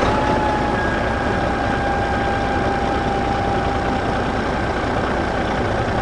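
Farm tractor engine running steadily, with a thin steady whine over it that fades out about four seconds in.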